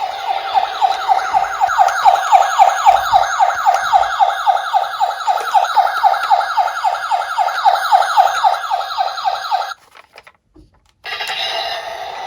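Toy ambulance's electronic siren sounding a fast yelp, about five sweeps a second, which cuts off suddenly near the end. About a second later a second, steadier siren tone begins.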